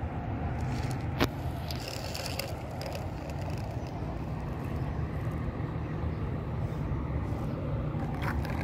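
Steady low outdoor rumble, with one sharp click about a second in.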